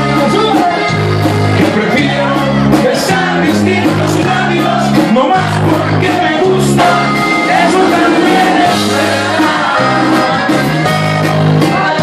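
Live norteño band playing at full volume: accordion over a stepping bass line, guitar and drum kit, with a voice singing.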